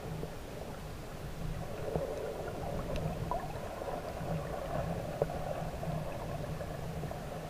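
Muffled underwater ambience picked up by a submerged camera: a steady low water noise that swells and fades, with a couple of faint clicks about three and five seconds in.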